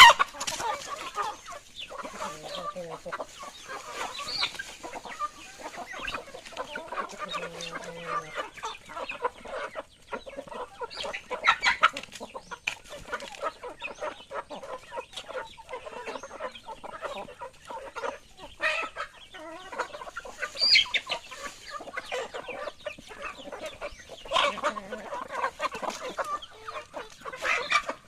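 A flock of chickens clucking continuously, many birds calling over one another, with a few louder calls standing out now and then.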